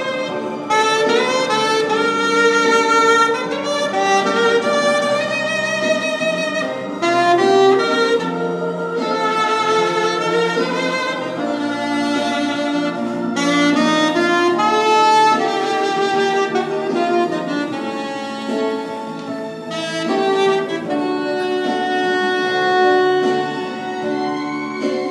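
Saxophone playing a flowing jazz melody, note after note, over low held accompaniment notes.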